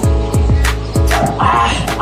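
Background music: a beat of deep bass kicks that drop in pitch on each hit, about two to three a second, with sharp snare hits over them.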